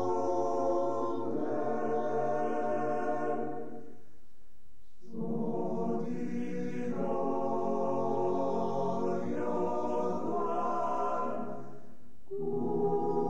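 Army alpine men's choir singing a slow Friulian song in long, held chords, breaking off briefly between phrases about four seconds in and again near the end.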